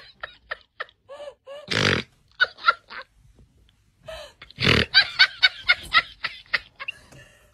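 A person laughing hard in quick repeated bursts, about four a second. The laughter is broken twice by a loud, rough, breathy sound, about two seconds in and again near five seconds.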